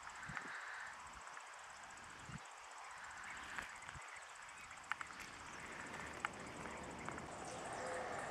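Faint outdoor ambience: low wind rumble buffeting the microphone in the first half, over a steady hiss, with a few sharp clicks from about the middle on.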